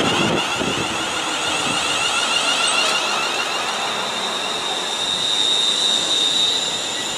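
ScotRail Class 380 Siemens Desiro electric multiple unit, two coupled units, running past close by with steady wheel-on-rail noise. A high steady whine grows louder about four seconds in, then eases near the end.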